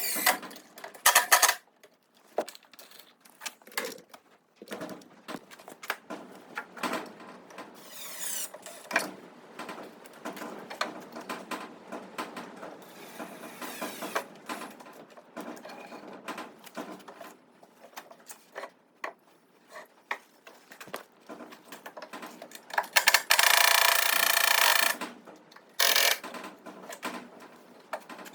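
Workshop sounds: a string of irregular knocks and clicks as tools and wood are handled, and a power tool running loudly for about two seconds near the end.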